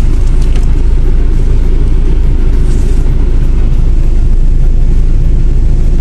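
Steady low rumble of a car driving, heard from inside the cabin.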